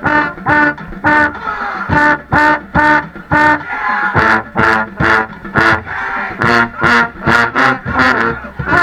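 A school pep band with brass and drums playing a loud stand tune: punchy accented chords about twice a second over a driving drum beat.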